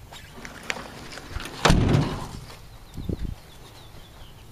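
A single loud thump partway through that dies away within about half a second, followed by a couple of softer knocks.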